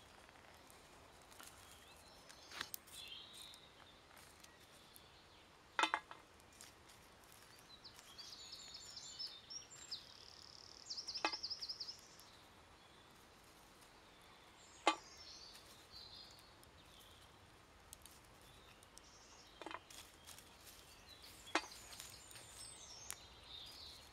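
About half a dozen sharp clicks, a few seconds apart, as sticks and chopped thistle stems are handled and poked into a bed of campfire embers. A small bird chirps in the background and gives a quick trill about halfway through.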